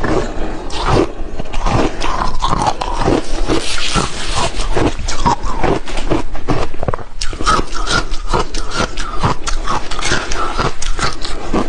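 A mouthful of crushed ice being chewed close to a clip-on microphone: rapid, irregular crunching, with a short lull about seven seconds in.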